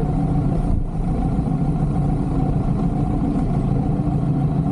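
Kawasaki Z900's inline-four engine running at low speed, a steady low rumble that dips briefly about a second in.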